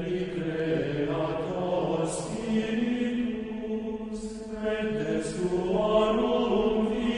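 Voices singing a slow chant, holding long notes that change pitch every second or two, with a sung 's' hissing through now and then.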